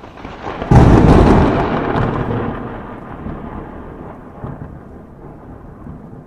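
Thunderclap sound effect: a sudden loud crack about a second in that rumbles and fades away over several seconds.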